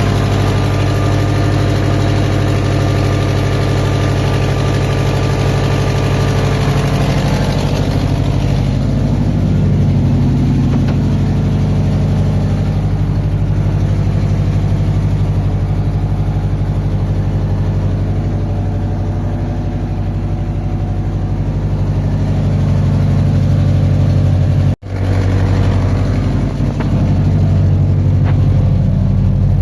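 Subaru Impreza's flat-four boxer engine idling steadily, broken by a split-second gap near the end.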